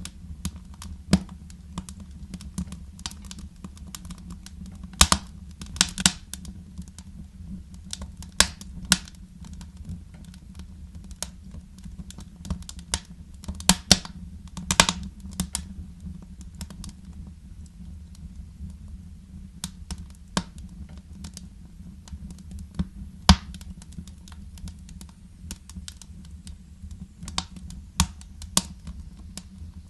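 Wood fire crackling in a fireplace: irregular sharp snaps and pops over a steady low rumble, with the loudest pops clustered about five seconds in, around the middle and near two-thirds of the way through.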